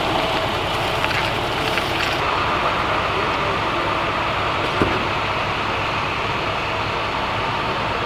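Engines of parked emergency vehicles, a fire engine and an ambulance, idling with a steady low rumble. A single short knock about five seconds in.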